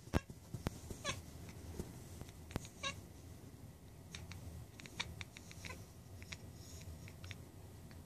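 Domestic cat chirping at a bird outside the window: two short chirps in the first three seconds, then a run of quick clicking chatter.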